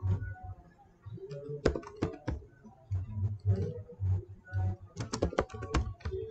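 Keystrokes on a computer keyboard: irregular clicks as a short search phrase is typed, with a quick run of keys near the end.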